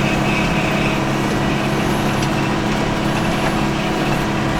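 Tractor engine running steadily under load while pulling a hay rake, a constant even drone.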